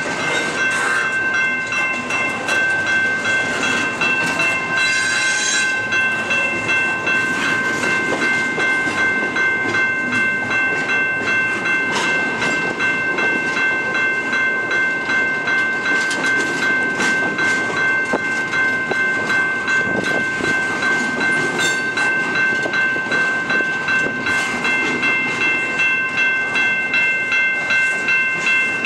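Double-stack container freight train rolling past at a grade crossing, steel wheels clicking in a steady rhythm over the rail joints. A crossing bell rings steadily over it.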